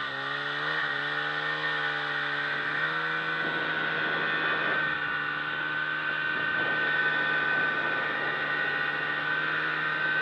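Snowmobile engine running, its pitch wavering up and down over the first few seconds, then holding steady.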